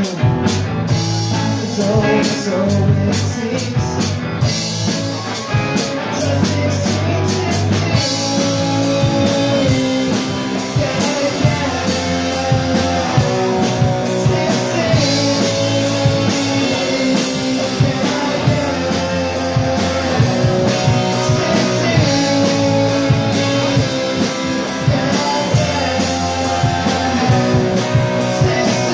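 Live amplified rock band playing: drum kit, electric guitars and bass. Heavy cymbal hits fill the first several seconds, then the drums settle into a steady even beat.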